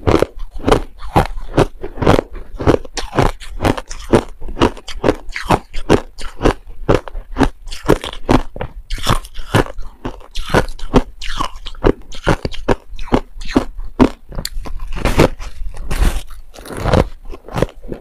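A person biting and chewing a packed lump of powdery white ice, a quick run of crisp crunches at about three a second.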